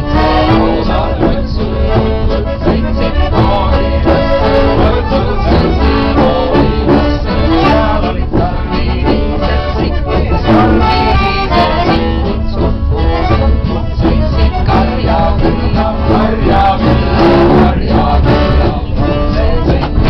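Cheerful accordion-led band music: an Estonian children's song about a train going choo-choo-choo.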